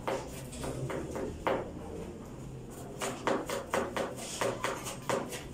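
Kitchen knife chopping an onion on a plastic cutting board: sharp knocks of the blade against the board. There are a few spaced knocks at first, then a quicker run of about four a second from about three seconds in.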